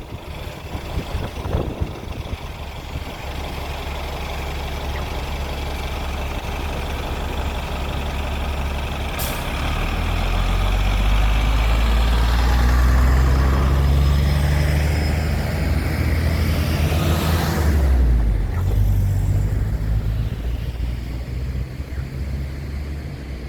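A heavy motor vehicle passing: a low engine sound that grows louder to a peak in the middle and fades away near the end.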